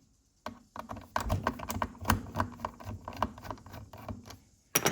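Screwdriver and screws clicking and tapping on the dishwasher's drain solenoid housing as the screws are taken out: a quick, irregular run of small clicks, with a louder knock near the end.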